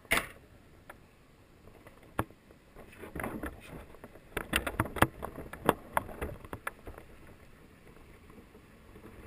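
Clicks, knocks and rattles from a Traxxas radio-controlled truck as it drives and turns over pavement, heard from a camera mounted on the truck itself. There is a sharp click right at the start, a busy stretch of rattling knocks in the middle seconds, and then it goes quieter.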